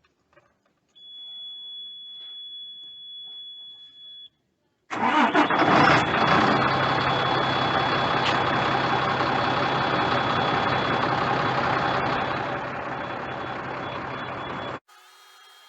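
Dump truck engine starting: it catches with a ragged surge about five seconds in, then runs steadily. Before that, a steady high-pitched beep sounds for about three seconds.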